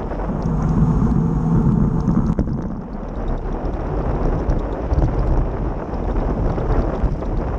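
Wind rushing over the microphone of a bicycle-mounted camera while riding, with a steady low rumble of tyres rolling on asphalt.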